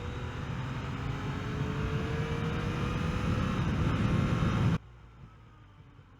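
Yamaha XSR900's inline three-cylinder engine running under way, its pitch rising slowly as the bike gathers speed, with wind rush over the microphone. The sound cuts off abruptly about five seconds in, leaving a quiet hum.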